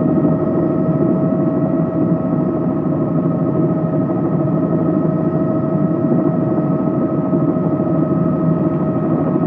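Helicopter engine and rotor noise heard from inside the cabin as it comes in to land: a steady, loud drone with a constant high whine over it.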